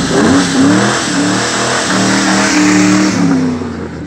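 Ford Mustang GT's V8 engine revving hard. The pitch sweeps up sharply at the start, then stays high, stepping up and down a few times, and falls away near the end.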